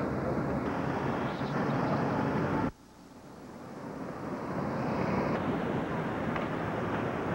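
Steady rushing outdoor noise on a camcorder's microphone, with no distinct event in it. It cuts out abruptly about three seconds in at a break in the recording, then swells gradually back to the same steady level.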